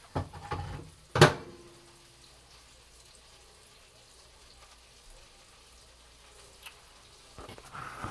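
Faint steady sizzle of butter heating in a skillet. Early on it is broken by two sharp knocks with a short metallic ring, the second the loudest. Near the end comes rubbing and handling noise as the phone is picked up.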